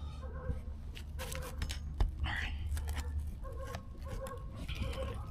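Hand roofing work on asphalt shingles: scattered clicks and scraping, with one sharper knock about two seconds in.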